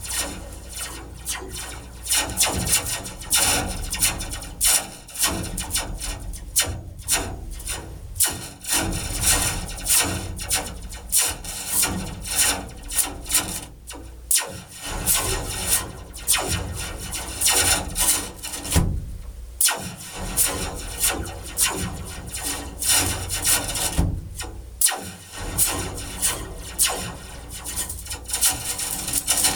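Metal slinky hanging from sheet-metal ductwork, its coils rattling and scraping against each other in a steady stream of irregular rasping strikes.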